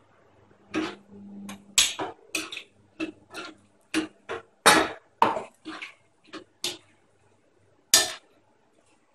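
A cooking utensil knocking and scraping against a cooking pot as its contents are stirred: an irregular series of sharp clacks, the loudest about halfway through and near the end.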